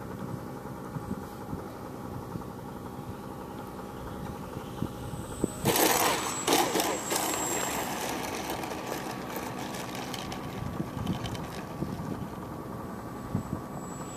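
Electric motor and propeller of a ParkZone T-28 radio-controlled model plane buzzing steadily in flight. About six seconds in, it grows louder for a couple of seconds with a thin high whine and a cluster of crackling knocks.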